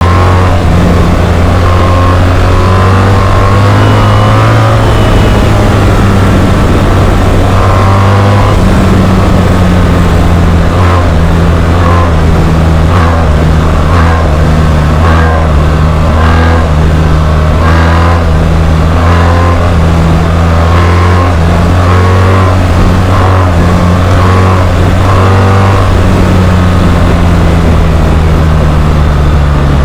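BMW R 1300 GS boxer-twin engine running loud through an SC Project Rally-X titanium slip-on exhaust, revved again and again in short rising bursts over a steady low drone.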